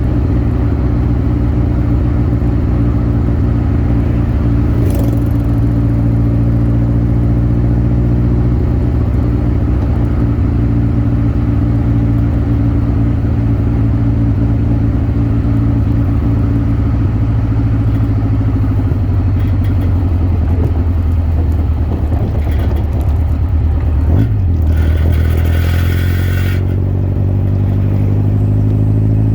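Birkin Seven's engine running steadily at cruise, then its note falls as the car slows about two-thirds of the way through. After a short hiss, the pitch climbs again as it accelerates near the end.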